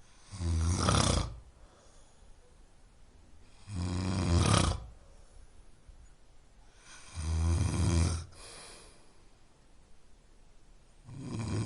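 A person snoring steadily. Four snores come about every three and a half seconds, each a low, pitched buzz about a second long, with quiet breathing gaps between them.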